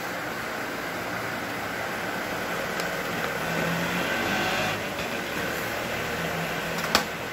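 Steady background noise with a low engine-like hum that grows louder midway, like a vehicle passing, and one sharp click about seven seconds in as the cardboard headset box is handled.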